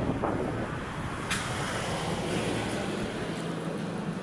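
Street ambience of a vehicle going by on the road, with wind noise on the microphone. A single sharp click comes a little over a second in, and a low steady engine hum sets in about halfway through.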